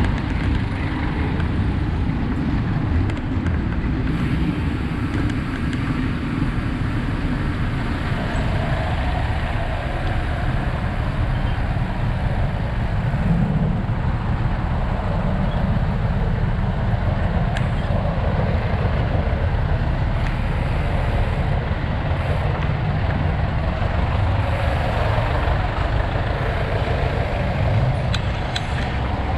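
Busy street traffic: jeepneys, vans and motorcycles running close by in slow traffic, making a steady low rumble.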